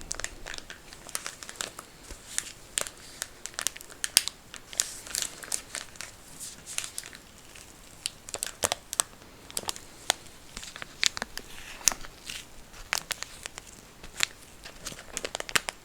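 Plastic packet of cleansing wipes being crinkled and handled close to the microphone, a dense run of irregular sharp crackles.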